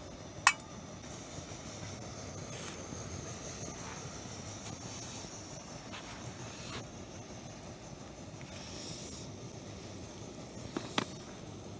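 Steady hiss of a backpacking canister stove burning under a small frying pan of melting butter. A sharp click comes about half a second in, and a couple more clicks come near the end.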